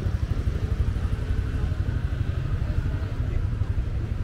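Street ambience dominated by a steady low rumble of motorbike traffic.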